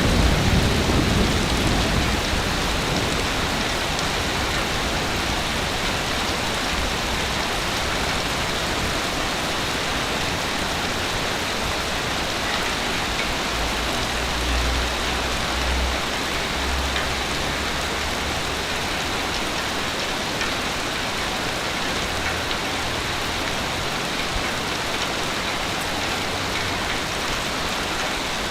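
Ocean waves on a beach: a steady wash of surf. The low rumble of a breaking wave dies away over the first couple of seconds, and another low surge comes about halfway through.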